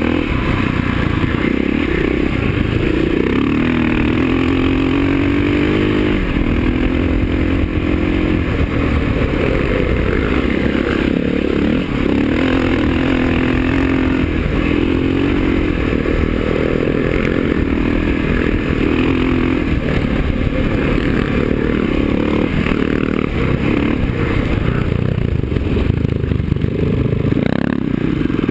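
KTM enduro motorcycle engine under way on a dirt track, its note rising and falling again and again as the rider accelerates and backs off, over a heavy low rumble.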